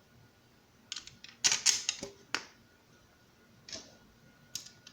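Clicks and rattles of small hardware being handled, a ceiling fan's screws and blade fittings: a cluster of sharp clicks about a second in, then a couple of single clicks near the end.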